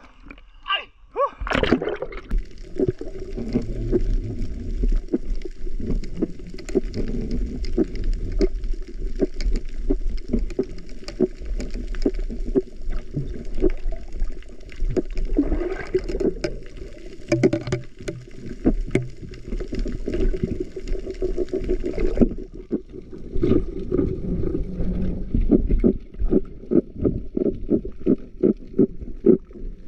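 Muffled underwater sound of a diver swimming: water gurgling and bubbling, with many irregular knocks and taps that come faster near the end.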